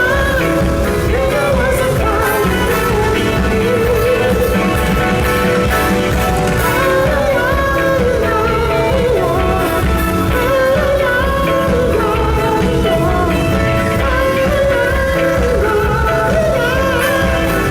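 Live pop music with a steady heavy beat and a singing voice over it, loud and continuous.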